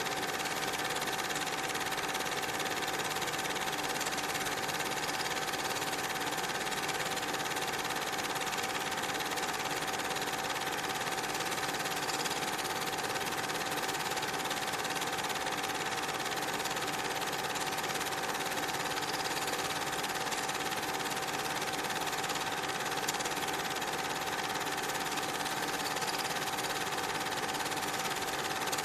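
Cine film projector running: an even mechanical whirr with a constant tone.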